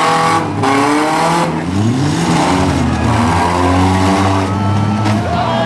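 Several four-cylinder compact cars' engines revving together, their pitch rising and falling.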